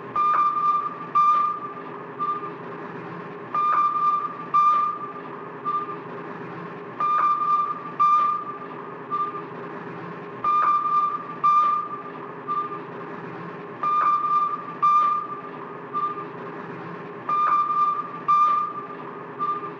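Retro 1960s sci-fi electronic sound effect: a looping pattern of high electronic beeps in short clusters, repeating about every three and a half seconds over a steady low electronic hum.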